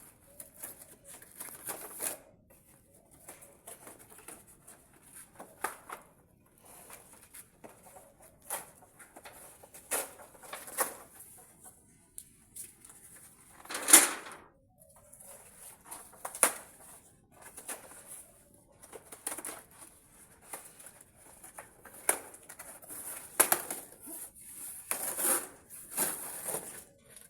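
Irregular clicks, knocks and rustles, the loudest about 14 seconds in, over a high-pitched hiss that comes and goes.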